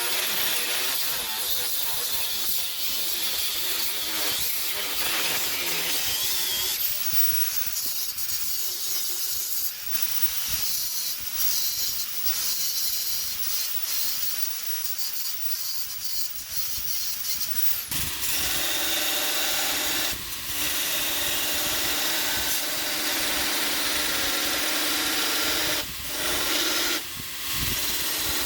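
Steady hissing, scraping tool noise with scattered ticks, which about two-thirds of the way in gives way to a steadier machine running with a faint hum under the hiss.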